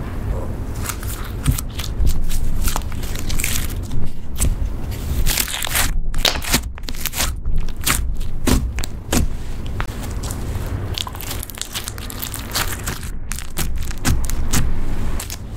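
Hands squeezing, stretching and poking slime, making a fast, irregular run of sticky clicks and crackles as small air bubbles in it pop.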